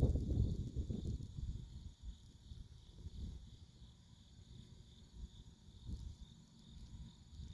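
Crickets chirring steadily in the trackside grass, with a low, uneven rumble that is strongest in the first second and then dies down.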